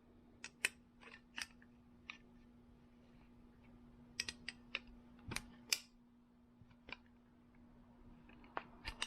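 Scattered metal clicks and clinks of hand tools being handled, as a pair of Channellock slip-joint pliers is worked on with a wrench. There are about a dozen sharp clicks, several close together around the middle, over a faint steady hum.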